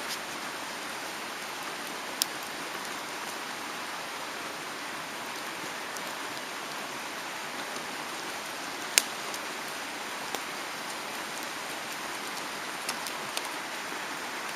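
Mountain stream rushing steadily, with a few sharp clicks or snaps, the loudest about 2 seconds in and about 9 seconds in.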